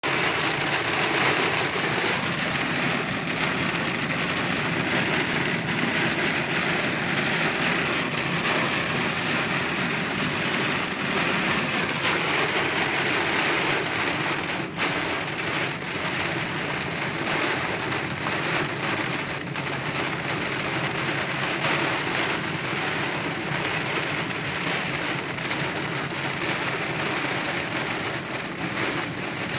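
Heavy rain beating on a car's windows and roof, heard from inside the moving car as a steady dense hiss full of small drop hits, over the car's running noise on the wet road.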